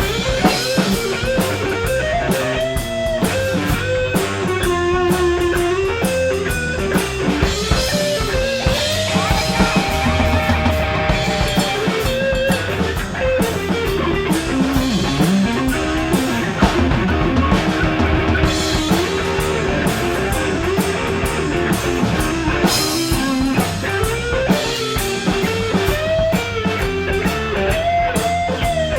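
Blues band playing an instrumental break: a guitar plays a lead line with bent, sliding notes over a drum kit and a low bass part.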